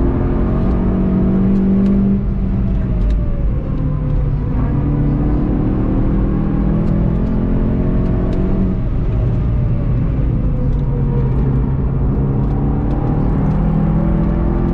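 VW Golf 7.5 GTI TCR's turbocharged 2.0-litre four-cylinder engine pulling hard, heard from inside the cabin with tyre and road rumble. Its pitch drops twice, about four and nine seconds in, and climbs again in between as the car lifts and accelerates through the corners.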